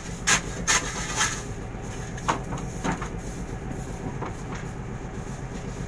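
Steady low drone of a fishing boat's engine, with a few sharp knocks and clatters in the first three seconds as the catch is handled and stacked in the hold.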